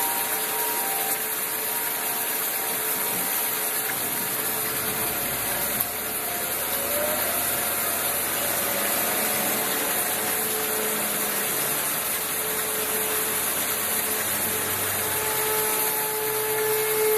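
Steady rushing noise of heavy rain and floodwater. A low engine-like hum joins about four seconds in, with faint steady tones above it.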